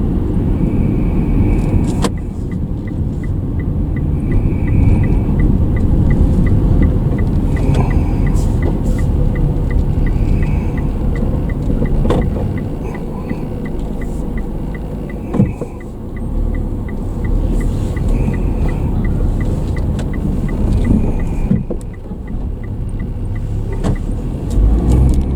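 A car driving, heard from inside the cabin as a steady rumble. From a couple of seconds in until near the end, a turn-signal indicator ticks regularly, about two to three clicks a second.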